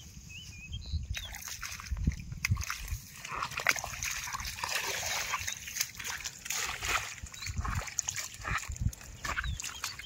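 Water splashing and sloshing in a flooded field furrow, with a steady low rumble of wind on the microphone. A few short chirps sound at the start, and from about a second in the splashing grows into a dense, irregular crackle with occasional low thumps.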